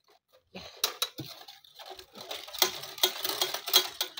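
Sheet-metal charcoal jiko with a clay liner clattering and clanking as it is handled, tipped and set down on the ground, with sharp knocks and rattles that come thickest in the second half.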